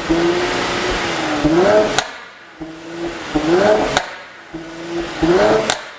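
Mercedes-AMG C43's twin-turbo V6 exhaust being revved three times, each rev held, climbing, and ending in a sharp pop on lift-off from a tune set up to make exhaust pops.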